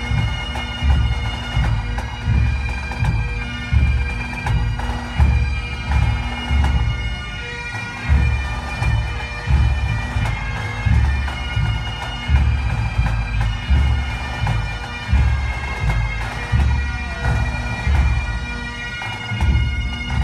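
Bagpipes playing a slow tune over their steady drones, with a deep drum beating a slow, even pulse about once a second.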